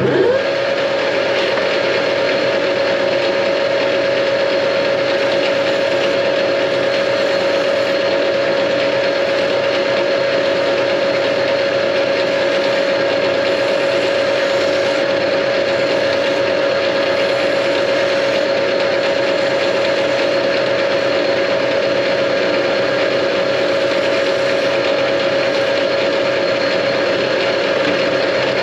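Metal lathe spindle starting up sharply and then running steadily under power, with a constant whine over the machine's running noise.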